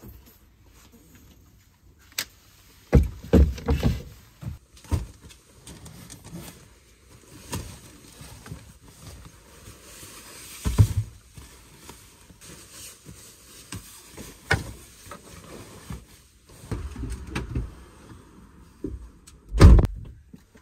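Gear being loaded into the cargo area of a Honda Freed+: irregular knocks, bumps and rustling as items are set down. The loudest, heaviest thump comes near the end.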